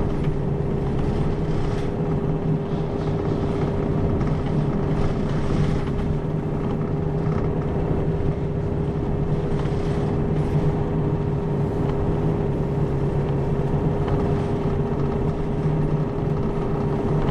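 Isuzu 2KG-LR290J4 (Erga Mio) city bus's four-cylinder diesel engine heard from inside the bus, running steadily at an even pitch with a low rumble.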